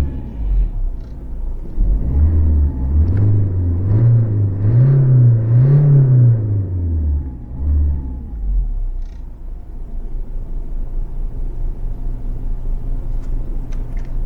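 Alfa Romeo MiTo 1.3 JTDM four-cylinder turbodiesel revved in a few climbing surges, each higher than the last, then dropping back to a steady idle about eight seconds in. A sharp click comes right at the end.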